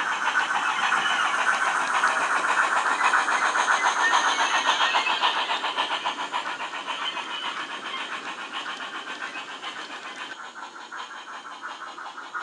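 Bachmann USA tank model locomotive's Wheeltappers DCC sound decoder playing rapid, even steam-exhaust chuffs through its onboard speaker. The beats peak a few seconds in, then fade as the train draws away.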